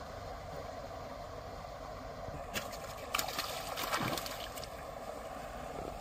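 Hooked rohu splashing and thrashing at the pond's surface as it is drawn in on a pole rod. Irregular splashes start about two and a half seconds in and are loudest around three to four seconds in.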